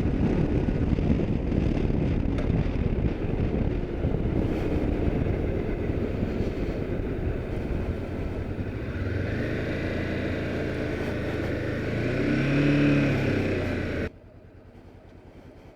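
Honda motorcycle ridden, heard through a lapel mic inside a full-face helmet: heavy wind and road rush at first. Later the wind eases and the engine note comes through, rising and falling. The sound cuts off suddenly near the end.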